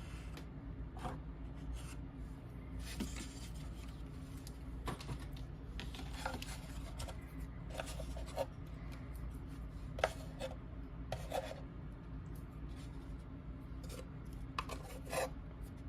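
Hands handling and pressing paper-covered chipboard box pieces together: soft rubbing and scattered light taps and rustles, over a steady low hum.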